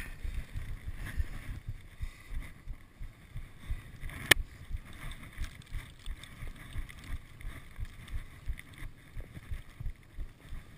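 Blizzard wind buffeting the microphone, a gusty low rumble with irregular thumps. One sharp click about four seconds in.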